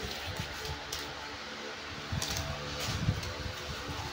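A steady fan-like hum under soft, irregular thumps and scuffles of kittens pouncing and landing on a mattress while they chase a feather toy, with a few light clicks.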